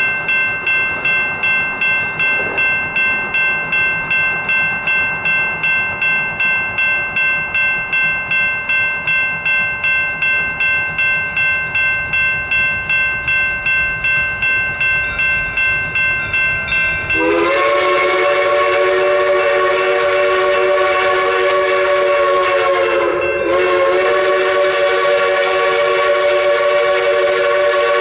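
A bell ringing rapidly, about three strokes a second, as a steam locomotive approaches. About 17 seconds in, the locomotive's chime steam whistle sounds a long multi-note blast that runs on, briefly dipping about six seconds later.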